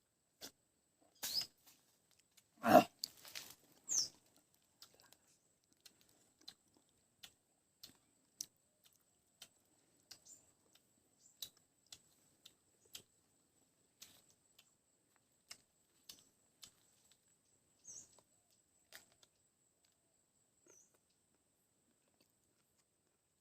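Close mouth sounds of someone eating lemon: scattered wet clicks and smacks of chewing, with a few louder bursts between about one and four seconds in, the loudest near three seconds.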